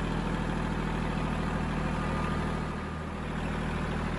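Kubota L2501 tractor's three-cylinder diesel engine running steadily, easing off briefly about three seconds in.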